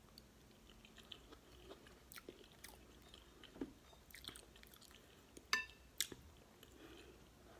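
Quiet close-up chewing of beef stew, with soft wet mouth clicks. A few sharper clicks stand out, the loudest about five and a half and six seconds in.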